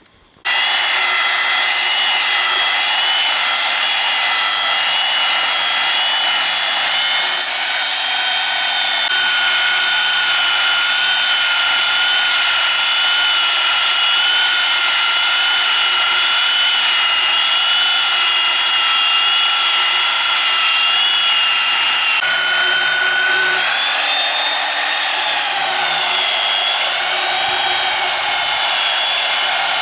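Petrol chainsaw running at high revs, cutting into a timber slab to rough out its shape. It starts suddenly about half a second in, and near the end the pitch sags and wavers for a few seconds as the chain bites.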